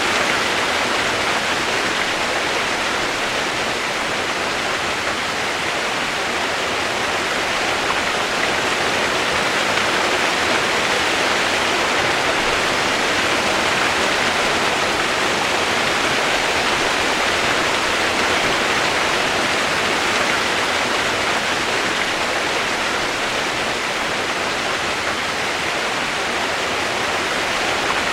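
Steady heavy rain played as a white-noise track: a dense, even hiss with no single drops or other sounds standing out.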